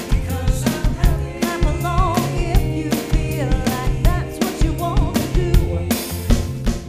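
Band music with a steady drum-kit beat of kick and snare under pitched instruments, a cymbal crash about six seconds in, then the music begins to fade out.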